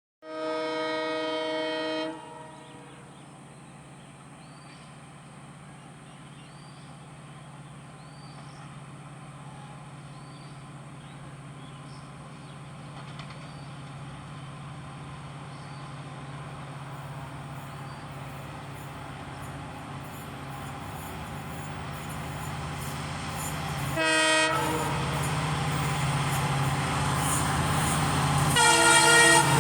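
WDG4 diesel locomotive sounding its multi-note horn for about two seconds, then its engine drone growing steadily louder as the heavy freight train approaches. The horn sounds again, briefly, about three-quarters of the way through and once more near the end.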